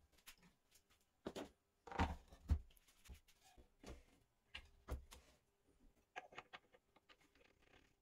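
Handling noise from a heavy metal three-jaw chuck and a wooden board being set down and shifted on a drill press table: a few solid knocks, loudest about two seconds in, with short scrapes and lighter clicks after.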